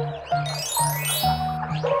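Background music with a repeating bass line, overlaid by a rising sweep sound effect about half a second in and another starting near the end.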